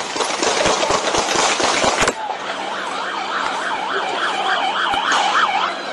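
Rapid, dense bangs and crackling for about two seconds, ending abruptly. A police car siren on a fast yelp follows, its pitch swinging quickly up and down about three times a second.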